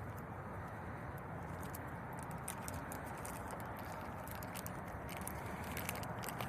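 Faint, scattered clicks and taps of a black plastic replacement exterior door handle being handled and fitted into a Hyundai Sonata's door, over a steady low background noise.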